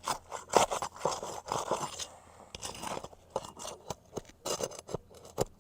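Asphalt three-tab shingles having their adhesive seals broken: a run of sharp cracks, crunches and short scrapes as the sealed tabs are pulled apart from the course below.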